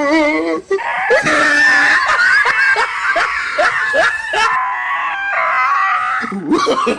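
A frightened dog screaming and yelping in distress while a fake tiger pins it down, in high, wavering cries. A run of short yelps comes about three a second through the middle, and the cries stop shortly before the end.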